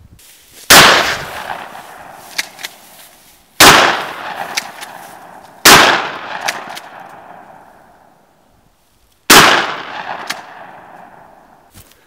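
Four shotgun shots fired at a cymbal target, unevenly spaced a few seconds apart. Each is a sharp blast followed by a long fading tail, with a few small clicks in the gaps between shots.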